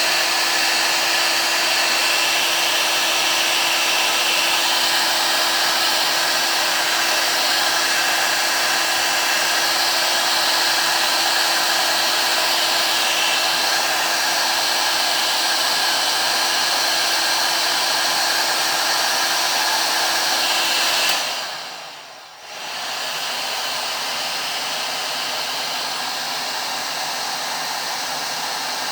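Parkside PHLG 2000 D3 hot air gun blowing steadily. About two-thirds of the way through it winds down over about a second, then starts again slightly quieter, without the low hum it had before.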